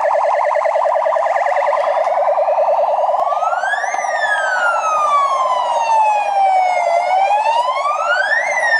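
Police escort siren: a rapid warble for about three seconds, then a slow wail that rises, falls over about three seconds, and rises again near the end.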